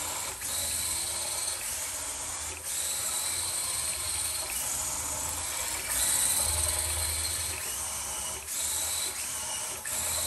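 Panda Hobby Tetra X1 RC crawler's electric motor and gearbox whining as it drives and slides across a hardwood floor, the whine changing pitch with the throttle over a steady hiss of tyres and gears.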